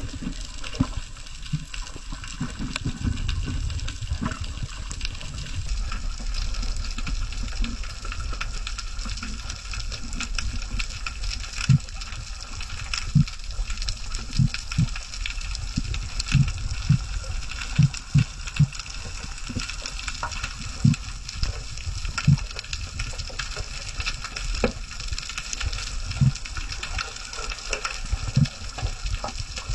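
Underwater ambience picked up by a diving camera: a steady low rumble and hiss of water, with scattered crackling clicks and a series of short low thumps, most of them in the middle stretch.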